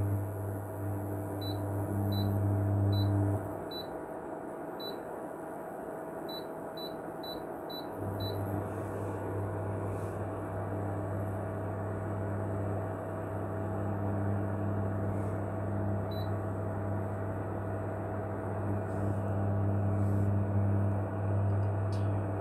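Ailipu ALP-12 induction hob's touch keys beeping as they are pressed: short high beeps, about ten in the first eight seconds and one more later. Under them is the hob's steady low electrical hum while it heats a stainless kettle. The hum stops about three seconds in and comes back about eight seconds in.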